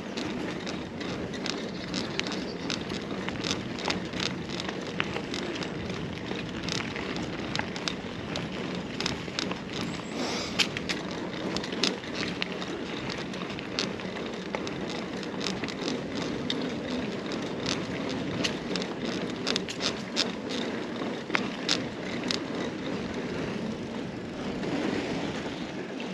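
Carrera Hellcat mountain bike riding along a rough path: a steady rumble of tyres on the surface, with frequent small crackles and clicks.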